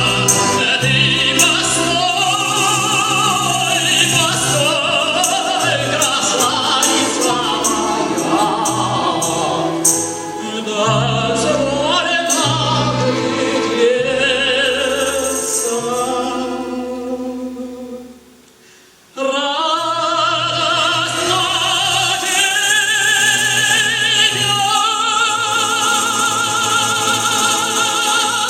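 Operatic tenor singing the closing phrases of a Russian romance with instrumental accompaniment. There is a brief pause about eighteen seconds in, then the voice comes back and ends on long held notes with vibrato.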